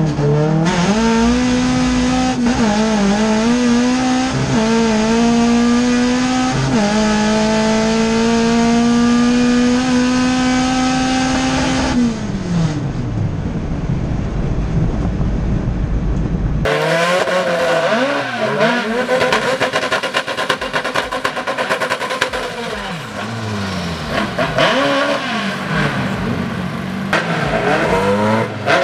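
Race car engine heard from inside the cabin, accelerating hard down a drag strip with its pitch climbing and dipping briefly at each gear change, then falling away as the driver lifts off about twelve seconds in. After a cut near the middle, other cars' engines rev and rise and fall in pitch as they drive past.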